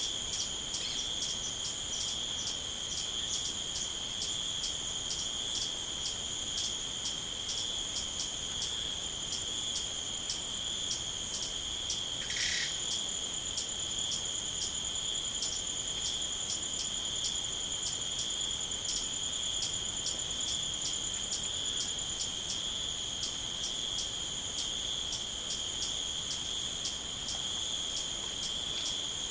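Crickets and other night insects trilling in a steady, unbroken high chorus, with a second insect chirping in short regular pulses about twice a second. One brief chirp comes about twelve seconds in.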